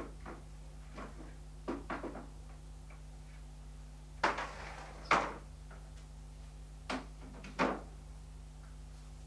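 A series of sharp clicks and knocks from opening and handling a Zanussi washing machine's door after the end of a wash cycle, over a low steady hum.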